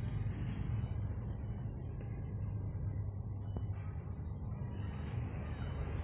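Heavy diesel engines running steadily, a continuous low rumble. A faint high thin whistle comes in near the end.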